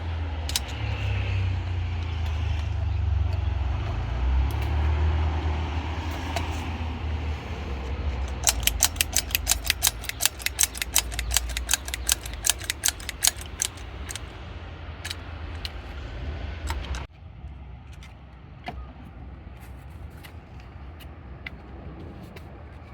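A vehicle engine running close by, a steady low rumble that cuts off abruptly about two-thirds of the way through. In the middle comes a quick run of sharp clicks, about seven a second, lasting several seconds.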